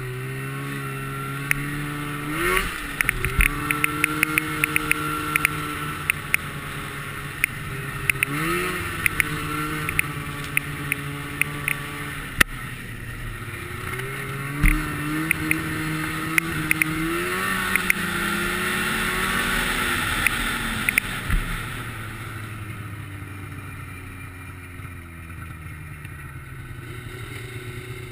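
Snowmobile engine running under changing throttle, its pitch rising and falling several times as the sled speeds up and backs off, with frequent sharp clicks over it. About three-quarters of the way through, the engine drops lower and quieter as the sled slows.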